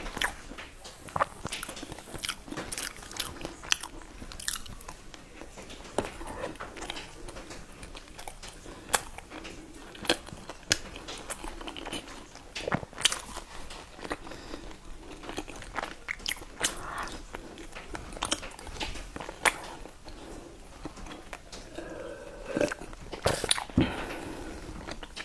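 Close-miked chewing and biting of mooncakes, with many sharp mouth clicks at irregular intervals.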